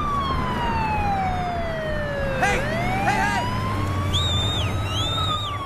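Ambulance siren wailing in long, slow sweeps. The pitch falls for about two and a half seconds, climbs back over the next two and a half, then starts to fall again near the end. A steady low rumble runs underneath, and short higher chirps come in the second half.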